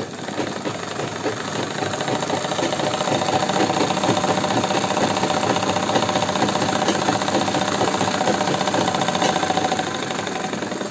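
Sewing machine running at speed, stitching a seam, with a rapid, even stitching clatter. It picks up speed over the first couple of seconds, runs steady, and slows near the end.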